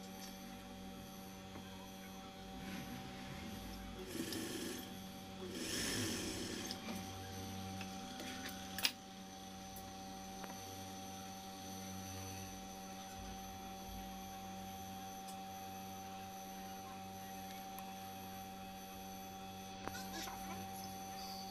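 Steady hum of a Juki industrial sewing machine's motor running between seams, with fabric being handled and rustling a few seconds in and a single sharp click about nine seconds in.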